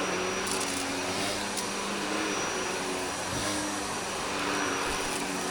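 Shark Navigator Lift-Away upright vacuum running steadily while being pushed over carpet, a steady motor hum with a thin high whine, the pitch of its hum shifting slightly as the head moves.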